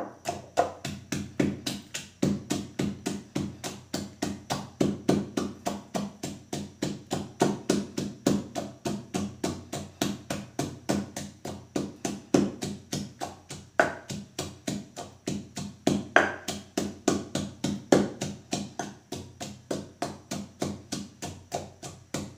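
Wooden pestle pounding fresh chillies and garlic in a clay mortar: a steady run of dull knocks, about four a second.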